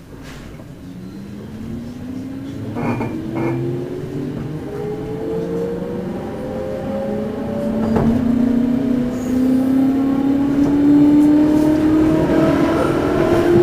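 JR Central 211 series electric motor car KuMoHa 211-5612 accelerating from a stop, heard from inside the car: its drive whine is several tones climbing steadily in pitch and growing louder as speed builds. This car is singled out for its abnormally loud running noise. A couple of knocks sound about three seconds in, and a sharp click about eight seconds in.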